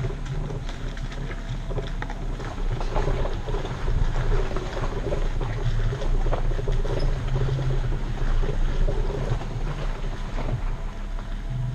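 Off-road vehicle crawling along a rocky dirt trail: a steady low engine drone, with the tires crunching and rattling over loose stones.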